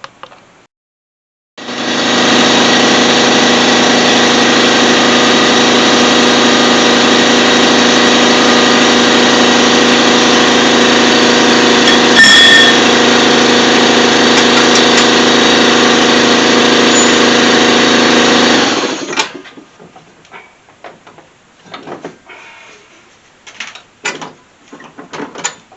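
Impact wrench hammering steadily for about seventeen seconds, with one metallic knock partway through, then stopping: it is breaking loose the bolts that hold the front strut to the steering knuckle. Light tool clatter follows.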